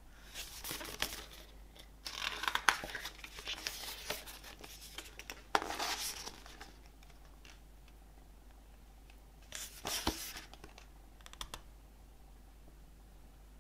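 Album packaging being handled by hand: paper or plastic crinkling and tearing in several irregular bursts, the longest lasting about three seconds, then a shorter burst about ten seconds in.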